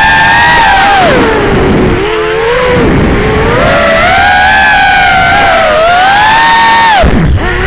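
FPV quadcopter's brushless motors and propellers whining loudly, the pitch sinking and climbing with the throttle; near the end the pitch dives steeply as the throttle is chopped, then rises again.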